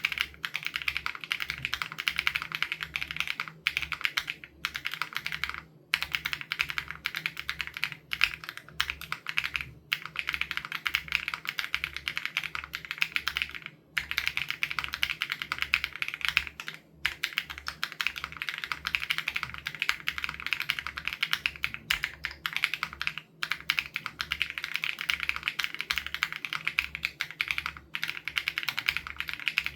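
Mechanical keyboard (SPM AL87B with BSUN Raw switches) being typed on continuously at a fast pace, a dense run of keystroke clicks broken by brief pauses every few seconds.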